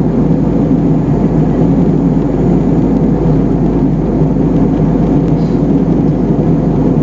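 Steady cabin noise of an Airbus A320-family jet airliner in flight, heard from a window seat: an even, deep rush of engine and airflow noise with a constant low hum.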